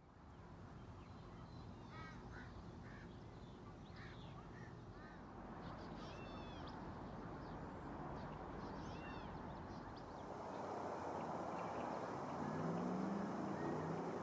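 Birds giving short, repeated calls over a steady outdoor background hiss. The calls stop about ten seconds in, and the background grows louder, with a low humming tone near the end.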